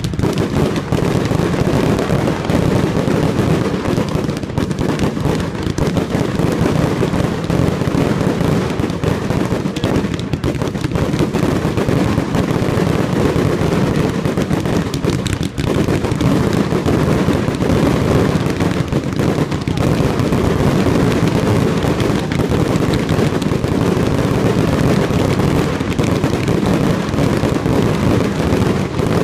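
Fireworks display: an unbroken barrage of rapid crackling and bangs from aerial shells and glittering crackle stars, loud and dense with no let-up.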